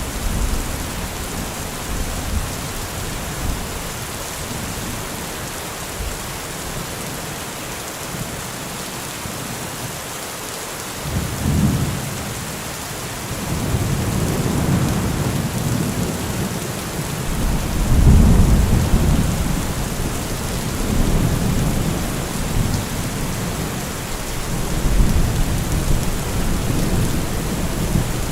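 Heavy rain falling steadily, with deep low rumbles swelling up several times from about eleven seconds in, the strongest a little past halfway.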